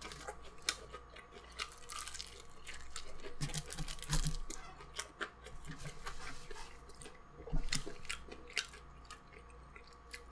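A person chewing a mouthful of crispy fried chicken breast, with irregular small crunches and mouth clicks.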